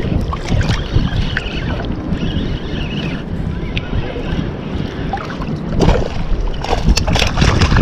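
Seawater sloshing and splashing around a wader fighting a hooked fish, with wind buffeting the microphone. Sharper splashes come near the end as the fish thrashes at the surface.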